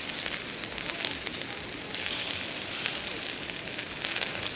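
Food sizzling on a grill over a small wood-fire pit, with the fire crackling: a steady hiss scattered with sharp pops.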